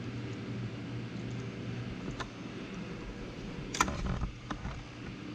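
Small clicks from wire connectors and wiring being handled under a truck dash, with one sharp click a little under four seconds in, over a steady low mechanical hum.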